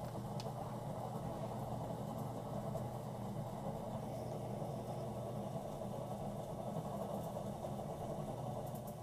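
Electric potter's wheel running with a steady motor hum while hands work the wet clay spinning on it.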